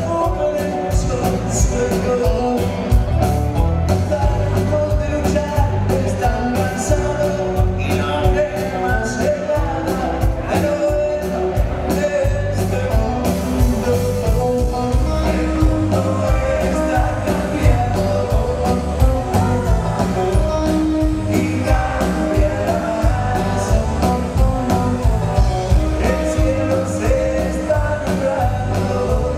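Live band music with a sung lead vocal over electric bass, keyboard and drums keeping a steady beat.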